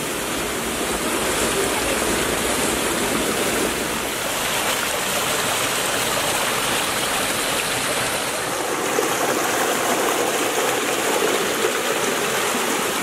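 Mountain stream cascading between boulders in a small waterfall: a steady rushing of water, fading out near the end.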